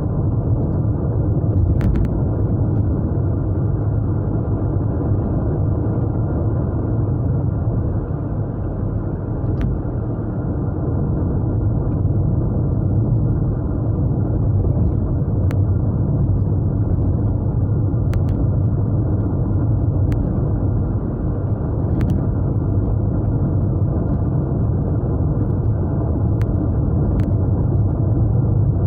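Japanese V6 car engine and tyre-on-road rumble at a steady cruise, heard from inside the car's cabin, with a few faint short clicks scattered through.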